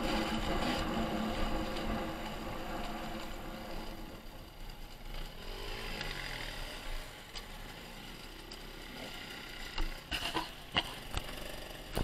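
Dirt bike engine running as the bike slows to a stop, its note fading over the first few seconds. Then quieter dirt bike engines idle and rev with rising and falling pitch, and a few sharp clicks come near the end.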